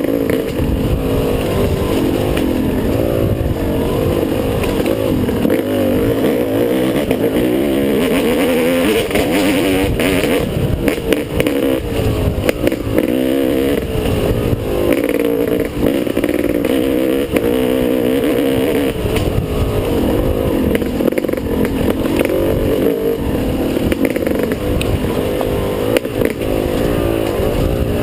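Dirt bike engine recorded on board, revving up and down over and over as the throttle is opened and closed, its pitch rising and falling continuously, over a rough low rumble.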